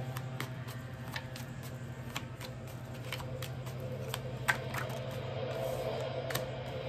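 Tarot cards being handled and shuffled: a string of light, irregular clicks and snaps, the sharpest about four and a half seconds in, over a steady low hum.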